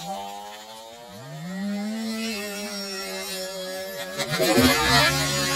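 Nitro model helicopter engine running at high revs, its pitch dipping and then climbing back to hold steady. About four seconds in there is a louder, ragged burst, and after it the engine runs on at a steady lower pitch.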